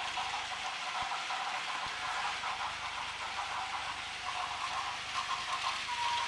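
Several battery-powered Plarail toy trains running on plastic track: a steady whir and rattle of small motors and wheels on the rails. A short steady tone sounds near the end.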